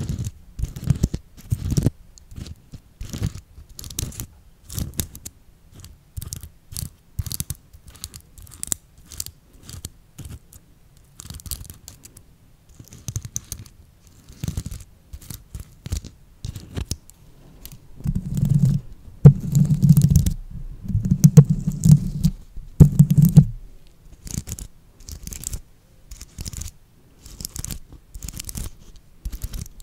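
Fingertips and nails scratching and tapping a sequin-covered ball held close to the microphone, making many short crackly clicks. From about 18 to 23 seconds in comes a louder stretch of deep rubbing right against the microphone.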